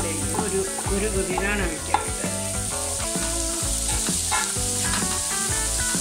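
Chopped vegetables sizzling in oil in a wok as a wooden spatula stirs and scrapes them. Instrumental background music with a pulsing bass plays throughout.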